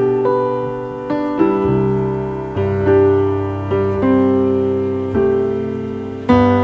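Piano music with no singing: slow notes and chords, each struck and left to ring away before the next.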